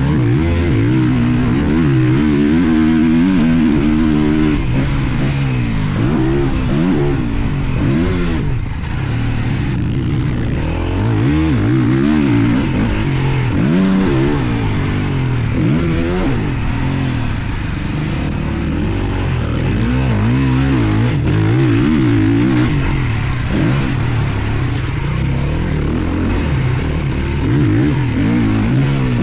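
Two-stroke motocross bike racing, its engine revving up and dropping back over and over as it is ridden hard through the track.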